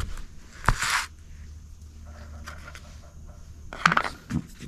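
Handling noises from a forklift tilt cylinder's steel gland and its seals being moved about on a cardboard-covered bench: a knock and a short scrape under a second in, then a quick cluster of clicks and rustles near the end.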